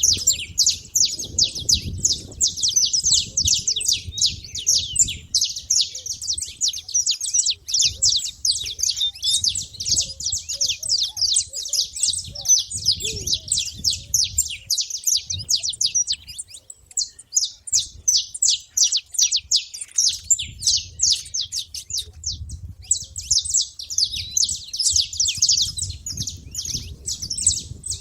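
Saffron finches calling in a rapid, dense stream of overlapping high chirps, thinning out for a few seconds past the middle and then picking up again.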